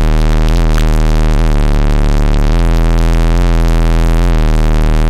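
UFO 518 car-audio subwoofer playing a steady, very loud low bass tone of about 40 Hz, with many overtones stacked above it; its character changes in steps a few times. The system is being driven flat out in an attempt to blow the subwoofer.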